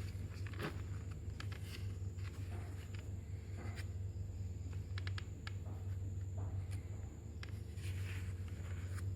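CD packaging being handled: scattered small clicks and short scratchy rustles, over a steady low hum.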